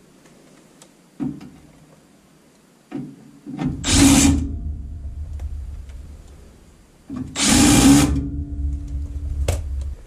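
Cordless power driver run twice in short bursts of about a second each, a few seconds apart, with a few knocks from handling around it.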